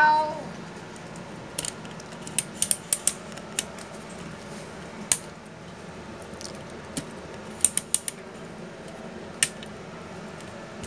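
Playing cards being picked up and laid down on a woven mat: about a dozen sharp clicks and snaps, bunched two to three seconds in and again near eight seconds.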